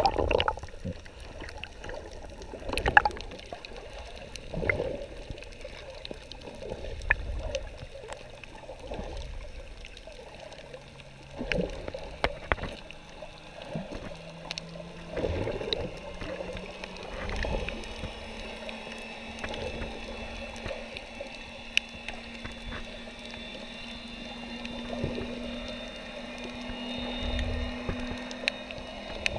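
Muffled underwater water noise recorded by a submerged camera: irregular sloshing surges and a few sharp ticks. A faint low hum comes in about a third of the way through and rises in pitch in steps.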